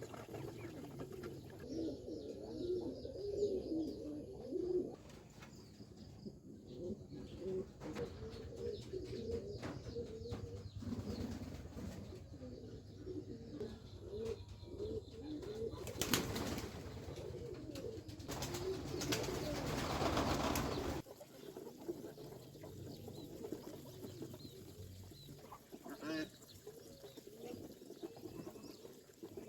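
Domestic pigeons cooing continuously in a low, wavering murmur. A short rushing burst a little past the middle, then a louder one lasting about two seconds, cut through the cooing.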